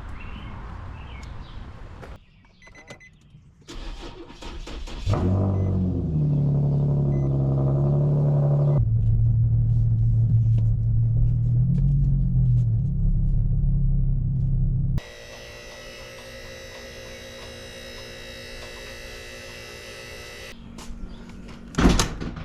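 2009 Infiniti G37's 3.7 L V6 started up about five seconds in and running at a fast idle, which settles to a lower idle a few seconds later. It then becomes a quieter steady hum, and there is a sharp knock near the end.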